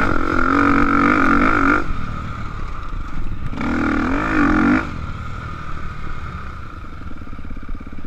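KTM 250 XCF-W dirt bike's four-stroke single-cylinder engine pulling under throttle, shutting off just under two seconds in, revving again in a short burst in the middle, then dropping to a quieter idle as the bike slows.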